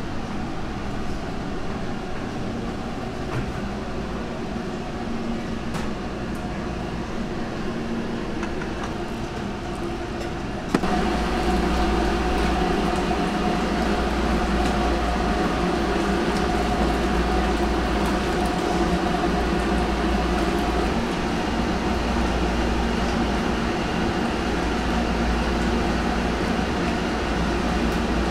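Steady kitchen machine noise and hum. About ten seconds in it jumps to a louder, deeper steady rumble and roar beside a large cauldron of bone broth at a rolling boil.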